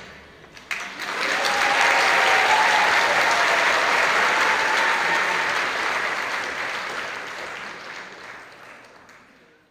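Audience applauding, swelling about a second in and fading away near the end. A single sharp click comes just before the applause starts.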